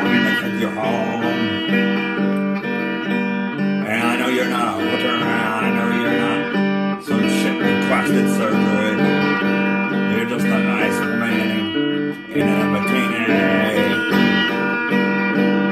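Electric guitar strummed in a steady, repeating chord pattern, dropping out briefly twice.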